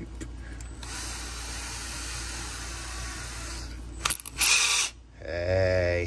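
Cordless drill with a small brass lock pin being fitted into its chuck. The chuck is worked with ratcheting and rasping mechanical sounds, and a sharp clatter comes around four seconds in. Just after five seconds the drill motor starts up with a short steady hum to spin the pin for smoothing.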